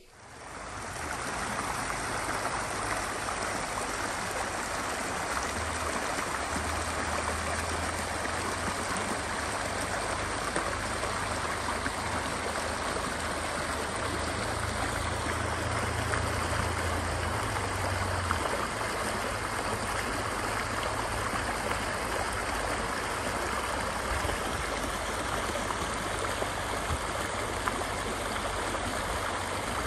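Shallow creek running over rocks: a steady rush and babble of flowing water.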